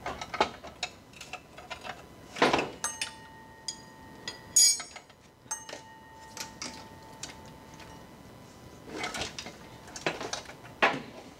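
Wrench and metal parts clicking and clanking as a Corvette's power steering rack is unbolted and worked free of the front subframe: scattered sharp clicks, two loud metallic clanks about two and a half and four and a half seconds in, and a thin ringing tone for a few seconds around them.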